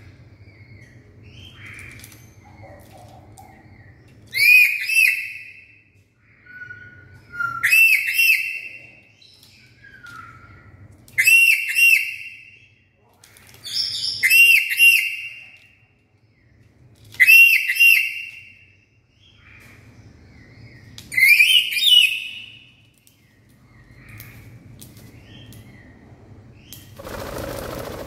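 Black-capped lory giving loud whistled calls: six bouts of two or three ringing, arched notes, one about every three to four seconds. Near the end comes a brief flurry of wing flapping.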